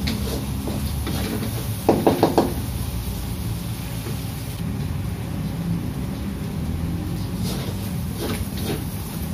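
Wooden spatula stirring onions and garlic sautéing in a metal wok, with a quick run of about four knocks against the pan about two seconds in, over a steady low hum.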